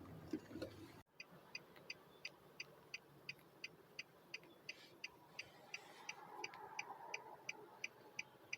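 A car's indicator ticking steadily inside the cabin, about three crisp clicks a second, starting after a cut about a second in, over faint cabin noise.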